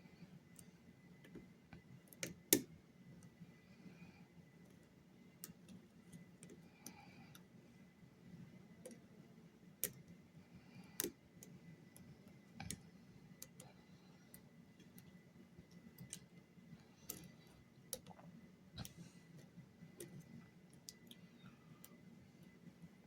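Irregular small metallic clicks of a lock pick and tension wrench working the pins of a pin-tumbler lock, with a sharper click about two and a half seconds in.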